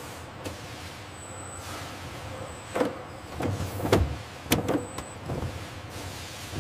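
Packing-line machinery: a steady hum, then from about three seconds in a series of mechanical clunks and clicks with short motor whirs as a robotic gripper arm sets bottles into a cardboard case.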